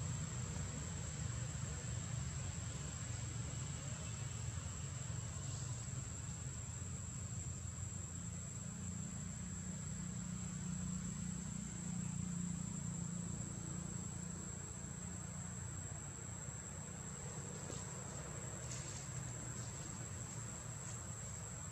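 Insects, crickets by their sound, trilling: one steady high-pitched tone that runs on unbroken, over a low rumble.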